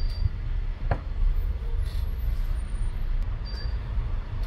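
Low steady background rumble, with one light click about a second in.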